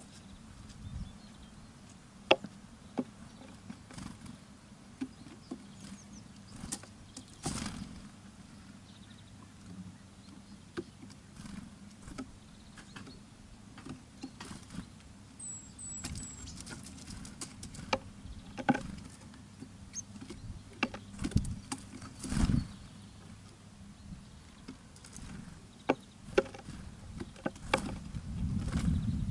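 Birds feeding at a bird feeder: irregular sharp taps and clicks of pecking at seed, with a few brief high chirps around the middle, over a low steady hum.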